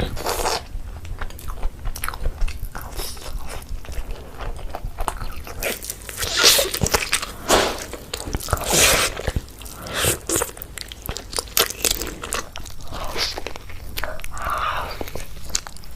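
A person eating close to the microphone: irregular bites, crunching and chewing, with several louder crunches around the middle.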